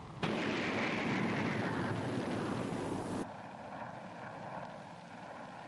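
Jet aircraft noise: a loud rushing roar starts suddenly, slides down in pitch, and cuts off abruptly about three seconds in. A quieter, steady engine drone follows.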